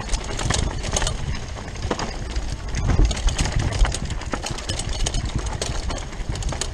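A Rockrider 540S mountain bike rolling fast down a dirt singletrack: its tyres rumble over the ground and the bike rattles and clicks over the bumps, with a couple of harder knocks about halfway through.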